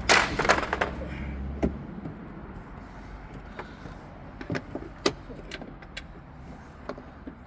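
Scattered light clicks and knocks of hand work on a car's stripped interior while a part is screwed in. It opens with a brief loud rasp and a low hum that stops about a second and a half in.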